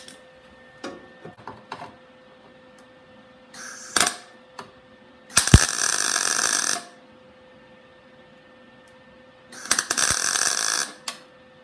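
MIG welder arc crackling in three bursts of tack welding: a short one about four seconds in, then two longer ones of over a second each. The welds fix a replacement front inner wheel panel in sheet steel.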